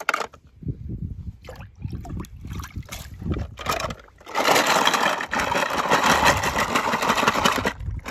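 Die-cast toy cars clicking against a plastic tub, then from about four seconds in a loud, dense rattling clatter of the tub full of metal and plastic toy cars.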